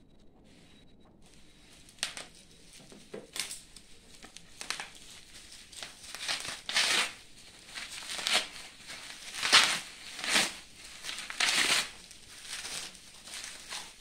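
Plastic packing wrap being pulled and crumpled by hand, crinkling and rustling in irregular bursts. It starts about two seconds in and gets louder through the second half.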